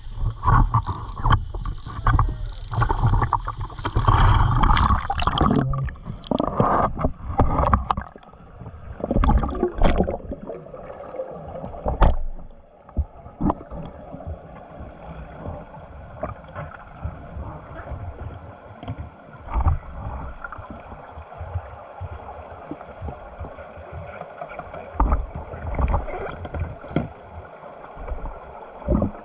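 Water splashing and sloshing around the camera as it goes in at the surface, with irregular knocks, for the first dozen seconds. After that the sound turns muffled and steady, as heard underwater, with scattered sharp clicks.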